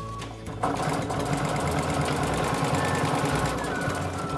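Janome Super Quilt electric sewing machine stitching at a steady fast rate, starting about half a second in, as it sews a holding topstitch alongside a zipper.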